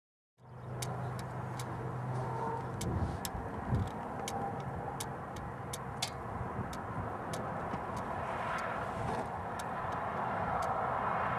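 A car running, with a steady rush of wind and road noise, a low hum in the first few seconds, and scattered sharp ticks about two or three a second.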